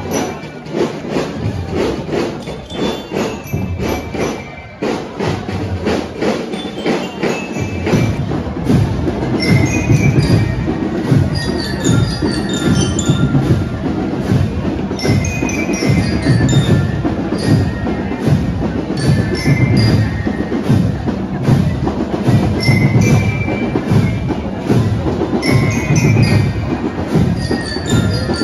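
A marching band playing a march: drums beating a steady, dense rhythm under short, ringing melodic notes from bell lyres. The drumming gets louder about eight seconds in.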